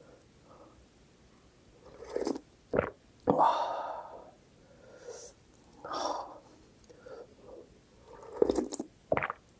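Eating sounds from a bowl of spicy instant ramen and kimchi: a series of short slurps, bites and breaths spaced a second or two apart, with one sharp click a little under three seconds in.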